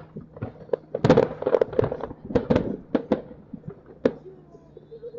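Aerial fireworks bursting: a few light pops, then a dense run of bangs and crackles for about two seconds, and one more bang about four seconds in.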